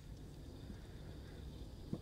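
Low steady hum with a single short knock near the end.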